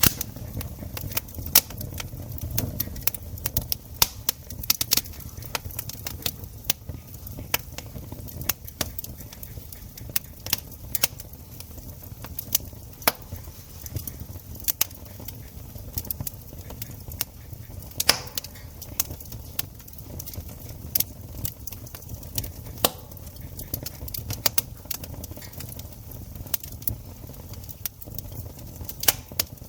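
Campfire crackling: sharp, irregular pops and snaps, several a second, over a low steady rumble.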